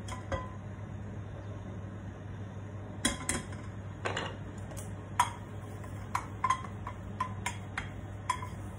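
Chopsticks tapping against an empty stainless steel wok: one light clink near the start, then a string of about a dozen clinks with a short metallic ring from about three seconds in. A steady low hum runs underneath.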